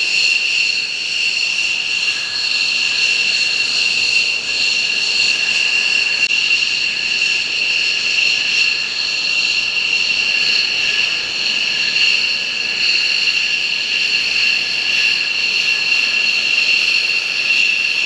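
Military jet engines running at ground idle, a loud steady high-pitched whine made of several pitches at once over a rushing noise.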